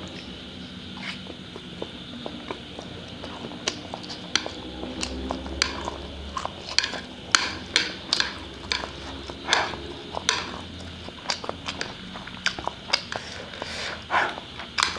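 Close-miked chewing and slurping of spicy instant fried noodles, with many short wet mouth clicks and smacks that come thicker in the second half.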